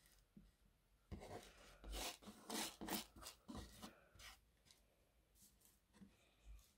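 Hands rubbing and smoothing tulle netting across a wooden board: a run of quick brushing strokes starting about a second in and thinning out past the middle, with a few faint ones near the end.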